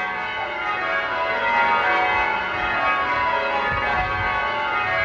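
A ring of eight English change-ringing bells being rung in changes from the church tower, strokes following one another continuously so the bell tones overlap in a steady wash.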